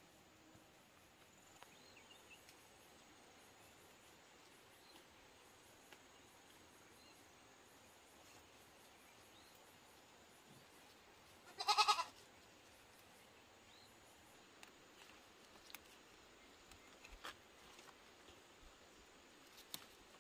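A single short animal call, about half a second long, halfway through, over faint rural background with a few small ticks afterwards.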